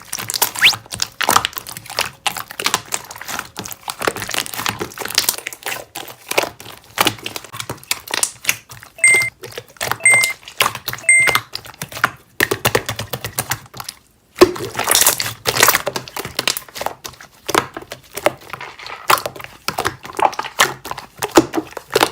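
Rapid, irregular clicking and tapping, like keys or small objects being struck, with three short, evenly spaced beeps about nine to eleven seconds in. The clicking breaks off briefly twice, near twelve and fourteen seconds.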